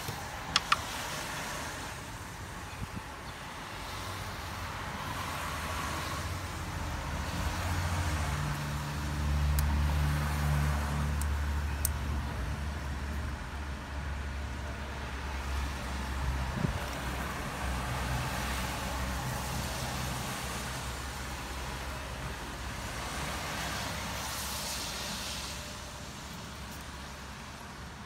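A motor vehicle's engine running as a steady low hum, growing louder toward the middle and then fading away. Two sharp clicks near the start, from a screwdriver working at a plastic connector clip on the coil pack.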